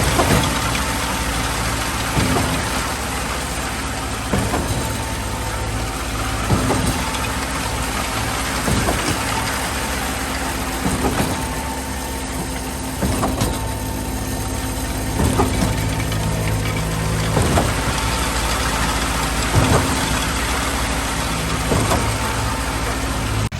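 Truck-mounted concrete pump running flat out, its diesel engine at a steady high drone. A regular clunk about every two seconds marks each piston stroke changeover as concrete is pushed up the line.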